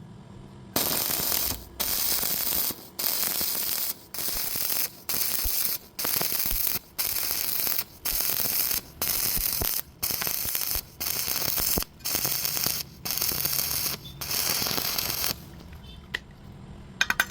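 Arc welding crackling in a run of bursts just under a second long, the arc breaking off briefly about once a second. It stops about 15 seconds in, leaving a faint hiss.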